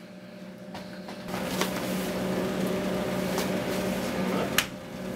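A steady hum with a noisy rustle that swells about a second in, and a few sharp clicks.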